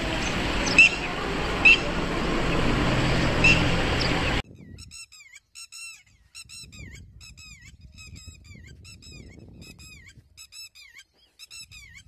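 Red-wattled lapwing calling. For the first four seconds a few sharp single calls stand out over a loud, steady rushing noise. Then the sound cuts abruptly to a clearer run of rapid, repeated down-slurred notes in quick groups, the bird's alarm call.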